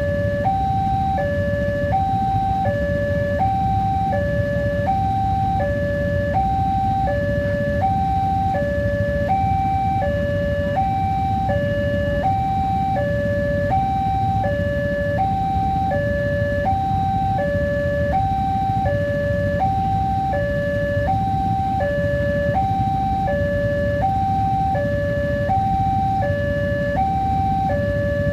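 Indonesian railway level-crossing warning siren sounding a steady two-tone electronic alarm, alternating high and low about twice a second, the signal that a train is approaching and the barriers are down.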